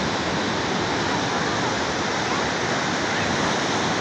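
Ocean surf washing onto a sandy beach: a steady rush of small breaking waves.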